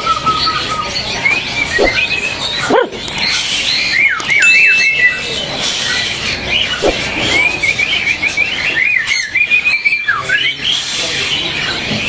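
Caged songbirds singing: rapid strings of chirps and whistled sweeps, with one brief steady whistle near the middle.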